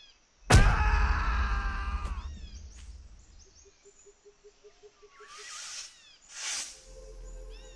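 Cartoon sound effects over a forest birdsong bed: a sudden loud boom about half a second in, with a ringing chord that slowly fades, then a quiet pulsing tone and two or three rushing swells near the end.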